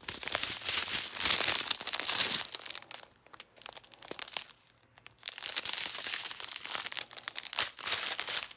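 Clear plastic bags of diamond painting drills crinkling and rustling as they are handled. The crinkling comes in two spells: heavy for the first two and a half seconds, then again from about five seconds in.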